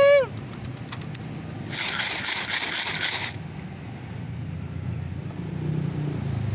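A cat meows once at the start, a short call that rises and falls. Street traffic rumbles underneath, with a rushing, scraping hiss from about two seconds in that lasts over a second.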